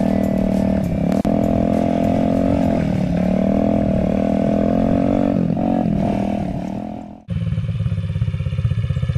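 Honda XR50 dirt bike's small single-cylinder four-stroke engine running while ridden, a steady note whose pitch dips and picks back up a few times. About seven seconds in, the sound cuts off abruptly and the engine is then heard idling up close with a rapid, even putter.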